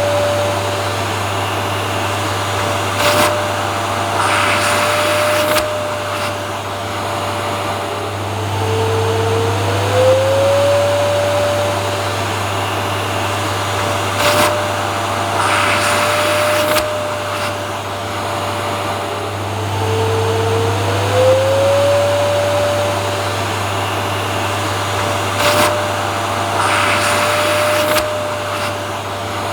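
Vacuum cleaner running continuously, a steady low hum under a motor whine that rises in pitch and then holds, with short bursts of louder hiss; the same pattern repeats about every eleven seconds.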